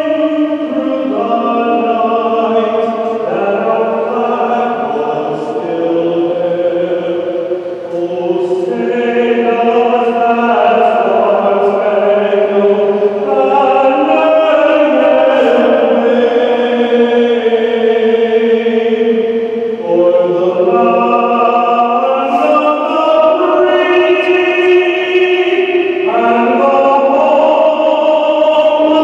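A choir singing a national anthem, with long held notes stepping up and down in pitch.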